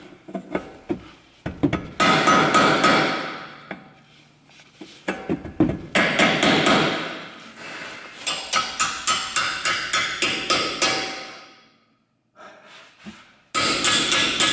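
Hammer tapping the upper control arm's ball joint home in the steering knuckle of an Audi A4 B7's front suspension: runs of quick metal-on-metal strikes, about four or five a second, with ringing, broken by short pauses.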